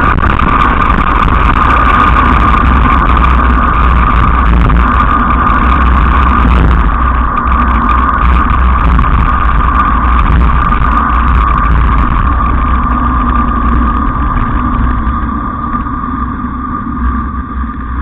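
Small wheels rolling fast over rough asphalt, a steady rushing rumble with a constant whine and wind buffeting the microphone, easing off over the last few seconds as the rider slows.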